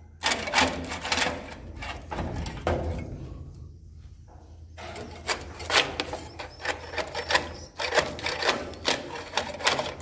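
Edible-nest swiftlets clicking rapidly as they echolocate in the dark nesting house, the clicks coming in dense bursts with a short lull about four seconds in, over a low steady hum.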